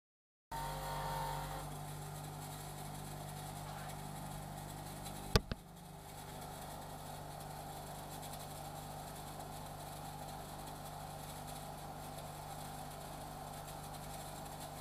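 Bench grinder motor running with a steady hum, louder for the first second or so while a steel tool is held against the wheel. A single sharp knock about five seconds in.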